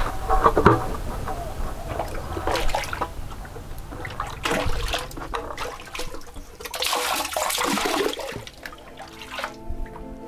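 Water splashing and sloshing in irregular gushes as a plastic bucket on a line is dipped into a spring well and hauled up full.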